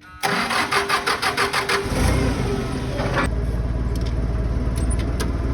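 A vehicle's engine cranked by its starter with a fast even churning, catching about two seconds in and then running steadily.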